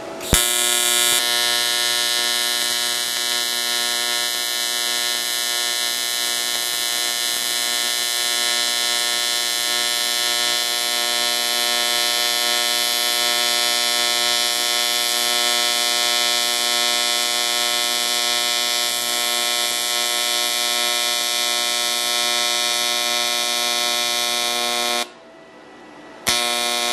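AC TIG welding arc on aluminum from a YesWelder TIG 200P set to 120 Hz AC frequency: a steady, loud buzz. It starts with a sharp crack about a third of a second in and runs for about 25 seconds. It then breaks off and is struck again briefly near the end.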